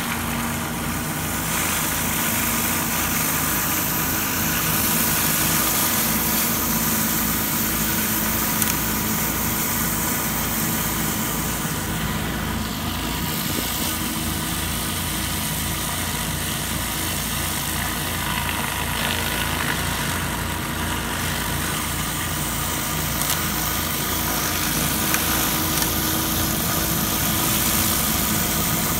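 Pressure washer engine running steadily, with the constant hiss of high-pressure water spraying from a rotary flat surface cleaner pushed across concrete.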